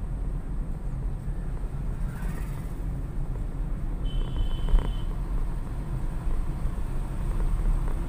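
Car driving steadily along an open road, heard from inside the cabin: a continuous low engine and tyre rumble. A brief high-pitched tone sounds about four seconds in.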